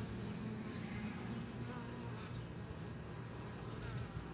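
A honey bee colony in an opened nuc hive buzzing in a steady hum.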